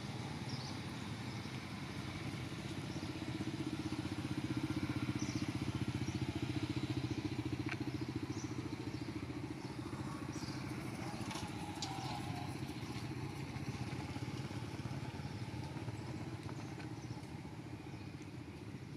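A motor engine running steadily, a low pulsing drone that swells slightly and then eases, with a few faint clicks over it.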